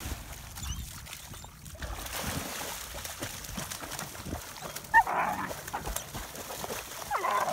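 German Shepherds splashing through shallow lake water and swimming, with one sharp bark about five seconds in and a high dog whine near the end.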